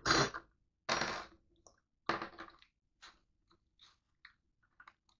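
Paper packaging being torn by hand: three short rips, then small faint rustles and clicks as the printed assembly directions are pulled off.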